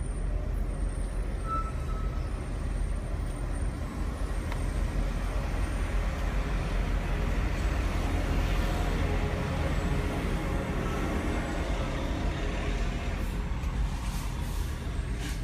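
Concrete mixer truck's diesel engine running close by: a low, steady rumble that is loudest about halfway through, over idling traffic. A few light clicks near the end.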